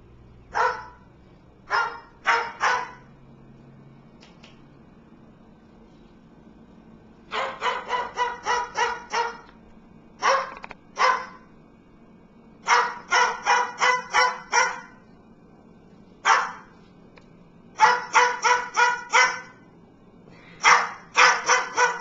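White cockatoo imitating a dog's bark: quick volleys of four to eight short barks, with pauses of a second to a few seconds between the runs.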